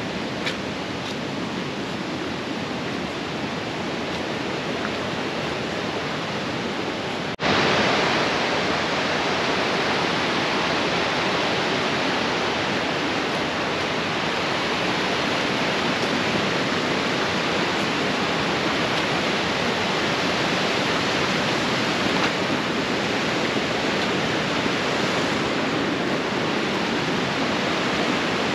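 Steady rush of flowing water, an even noise with no distinct events. It drops out for an instant about seven seconds in and comes back louder.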